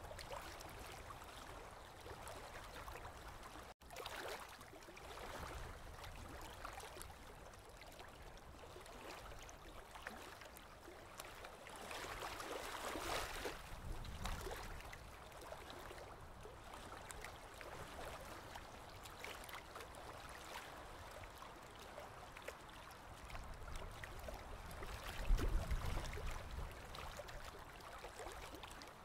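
Aquarium water trickling and gurgling at a low level, swelling briefly about halfway through. A short low bump near the end is the loudest sound.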